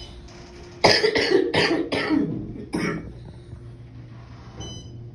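A person coughing hard: four coughs in quick succession about a second in, then one more cough.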